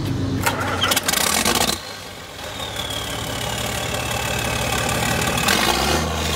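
John Deere 4840 tractor's turbocharged six-cylinder diesel engine starting. It is loud for the first couple of seconds, then there is a quieter stretch with a high whine that slowly falls. Near the end the engine catches with a deeper, stronger note and puffs black smoke from the stack.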